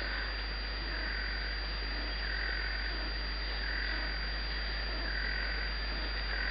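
An animal calling in a steady rhythm, a short pulsing call repeated about every one and a half seconds, over a low steady hum.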